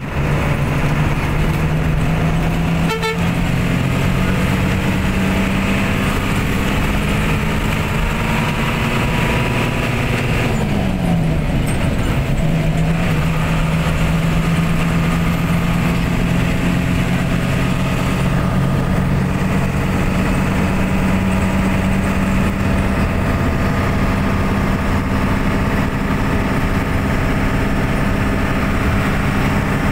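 Engine of the vehicle carrying the camera running steadily on the road, with tyre and road noise. A little after ten seconds in, the engine note drops and then picks up again, as at a gear change. There is a short sharp sound about three seconds in.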